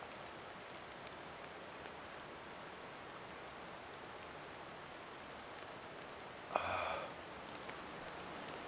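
Steady light rain falling, an even hiss. About six and a half seconds in, one short pitched sound stands out over it.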